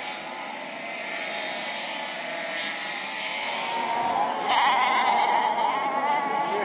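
A flock of sheep bleating, many calls overlapping, growing louder about two-thirds of the way in.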